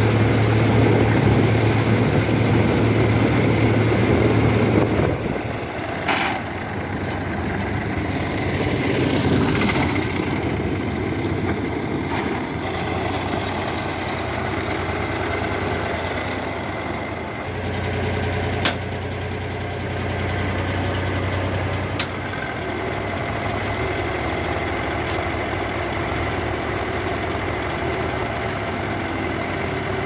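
Swaraj 735 XM tractor's diesel engine running. It is loud from the driver's seat for the first five seconds, then lower and steady, swelling briefly in the middle, with a few sharp clicks.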